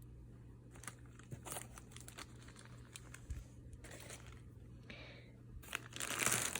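Paper and plastic packaging crinkling and rustling as items are handled in a box, with scattered light clicks and knocks; the loudest rustle comes near the end.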